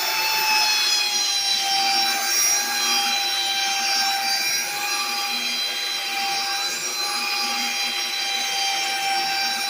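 Belt sander fitted with a coarse 50-grit belt, running at a steady speed with a constant whine, sanding a wooden table top to take off dried glue.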